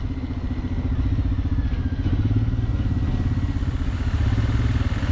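Motorcycle engine running steadily while riding, a fast even low pulsing under a steady rush of wind and road noise.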